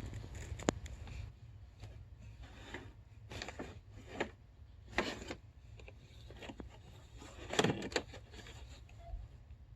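Scattered crunches of ice and stones on a snowy lake shore, a handful of short separate crunches a second or more apart, over a low steady rumble of wind on the microphone.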